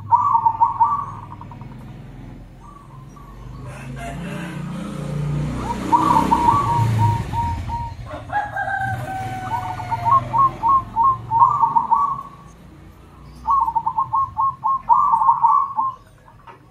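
Zebra doves (perkutut) calling back and forth in bursts of quick staccato cooing, some bursts overlapping. A longer drawn-out call, falling slightly in pitch, comes about eight seconds in, and a low rumbling noise runs through the middle.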